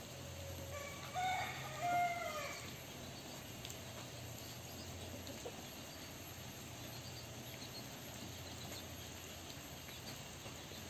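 A rooster crows once, about a second in: a single call of several held notes lasting under two seconds, the last one falling. After it, only a faint steady background.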